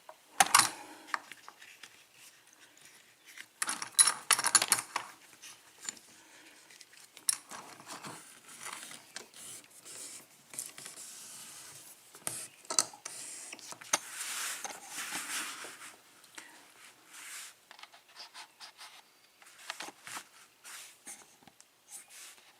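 Small metal lock cylinder and tools being handled: scattered sharp clicks and taps with a few short bursts of scraping and rubbing.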